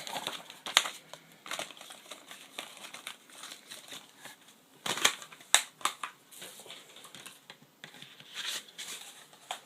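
Packaging being handled: crinkling and rustling, with scattered clicks and taps, the sharpest cluster about five to six seconds in.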